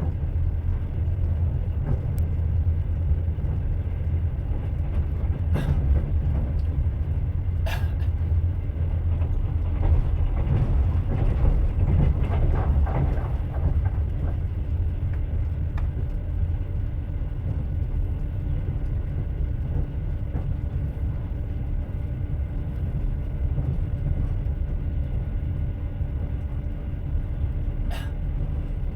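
Train running on the rails: a steady low rumble of the wheels and carriage, with a few sharp clicks and knocks.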